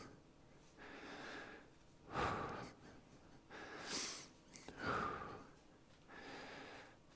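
A man breathing in and out close to a headset microphone during a warm-up exercise: softer inhales alternate with short, sharper exhales, about three breaths in all.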